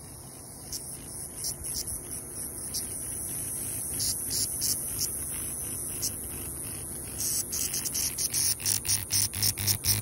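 Cicadas buzzing in a steady high-pitched drone. From about seven and a half seconds in, a louder, rapidly pulsing buzz joins it from a cicada caught and held in the hand.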